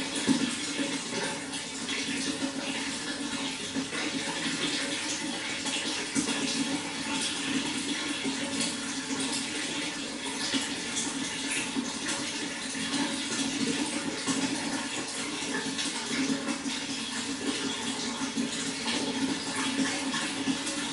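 Water flowing and splashing steadily, a continuous rush with many small splashes.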